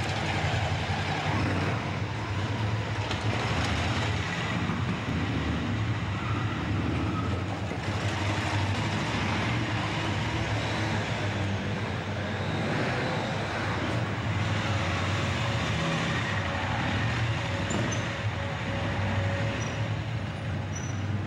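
Motorcycle running under way, its engine hum steady beneath rushing wind noise.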